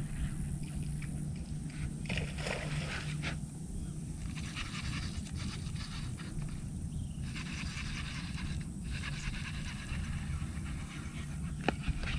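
Fishing reel being cranked in three spells of rapid ratcheting as a hooked fish is reeled in, with a sharp click near the end. Underneath are wind noise on the microphone and a steady low hum.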